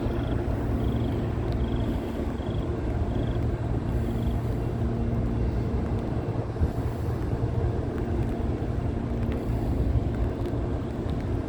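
Diesel freight locomotives of a slow-moving train running steadily with a deep engine rumble. A bell dings about once or twice a second over the first few seconds, then stops.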